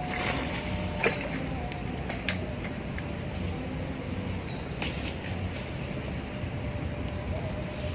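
Steady low rumble with a faint wavering hum, with short high bird chirps and two sharp clicks, about one second and two and a half seconds in.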